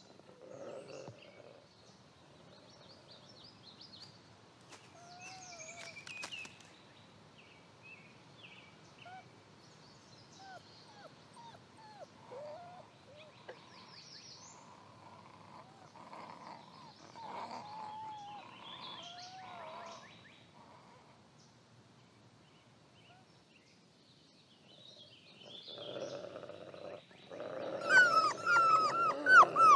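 Mexican gray wolf pups whining and squeaking in short, high calls while they pester an adult wolf. Near the end comes a much louder burst of growling and yelping, as the grumpy adult male snaps at the pups.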